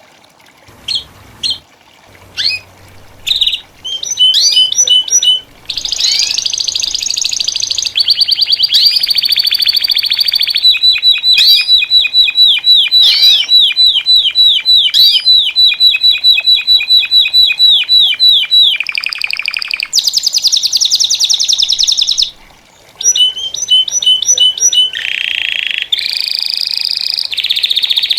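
Several domestic canaries singing over one another. A few separate chirps open, then the song runs nearly unbroken in rolling trills and long runs of fast, evenly repeated notes, with a short break about 22 seconds in.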